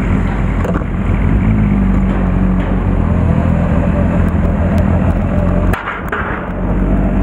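Motorcycle engine running as the bike rolls slowly at low speed. The engine note drops away briefly about six seconds in, then picks up again.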